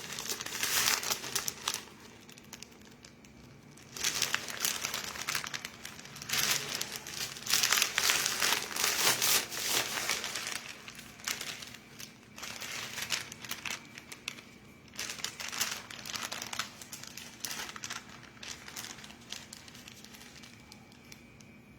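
Parcel packaging crinkling and rustling as a package is handled and opened, in irregular bursts with short pauses, thinning out near the end.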